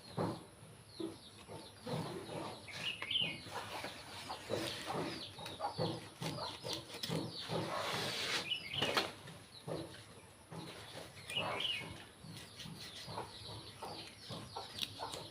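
Chickens clucking, a short call every few seconds, among scattered knocks and clatter.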